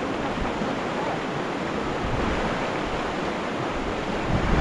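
Steady rush of a mountain river's flowing water, with some wind buffeting on the microphone.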